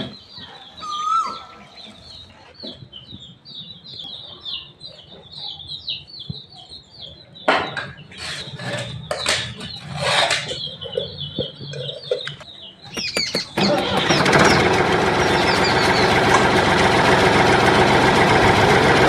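Small birds chirping, with a few louder calls about eight to ten seconds in. About thirteen seconds in, a loud, dense, steady engine-like sound comes in and holds.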